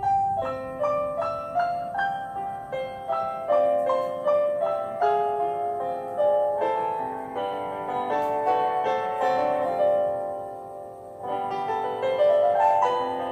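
Piano playing an instrumental introduction: a flowing stream of struck notes and chords. It thins briefly about ten seconds in, then climbs in a rising run of notes.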